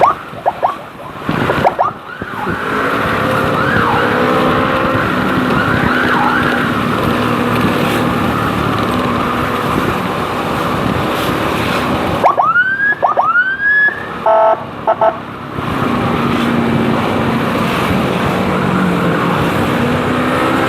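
Motorcycle escort's electronic siren giving short rising whoops near the start and twice more about twelve seconds in, then a quick run of short beeping blasts. Steady wind and motor noise from the moving motorcycle runs underneath.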